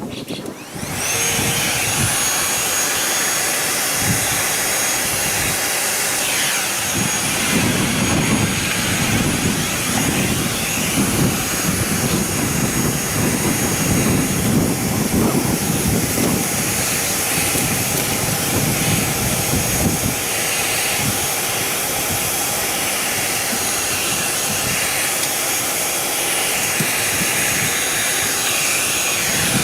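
Household vacuum cleaner switched on about a second in and running steadily with a high-pitched whine, being used to suck a hornet queen out of her early nest.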